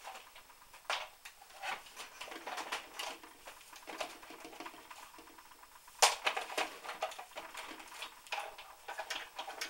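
Scattered clicks and knocks of a Big Shot die-cutting machine and its plastic cutting plates being set down and positioned on a craft mat, with one sharper knock about six seconds in.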